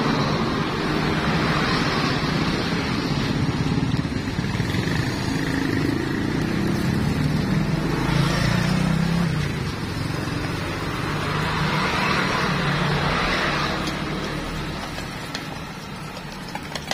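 Road traffic: motor vehicles, among them motorcycles, passing on the street, the noise swelling and fading a few times.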